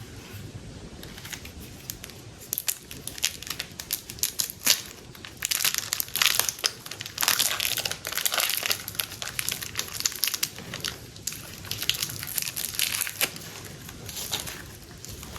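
Plastic packaging crinkling and crumpling as it is handled, in dense crackly bursts that start a couple of seconds in and ease off near the end.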